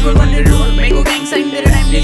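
Hip hop music: rapped vocals over a heavy bass and drum beat, the bass dropping out briefly a little past the middle.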